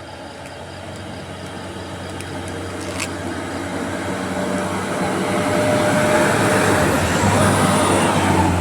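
Diesel bus engine under load climbing the incline, growing steadily louder as it approaches, with tyre and road noise, loudest near the end as it passes close.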